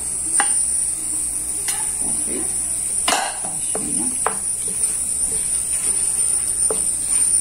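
Wooden spoon stirring ground sesame into a thick raisin paste in a metal pot, scraping and knocking against the pot a handful of times, loudest about three seconds in, over a steady high hiss.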